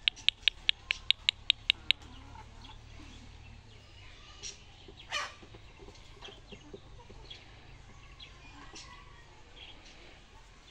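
Backyard chickens calling with scattered short clucks, one louder call about five seconds in. At the start, a rapid, even run of sharp high chirps, about five a second, stops abruptly about two seconds in.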